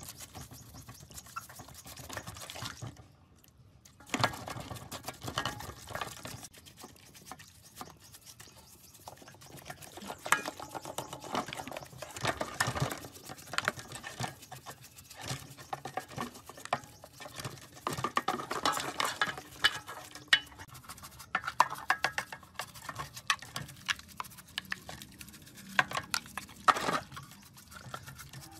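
Stiff-bristled paint brush scrubbing dirty plastic saw housing parts in a basin of soapy water, with irregular scratchy strokes and water sloshing. The scrubbing pauses briefly about three seconds in, then resumes.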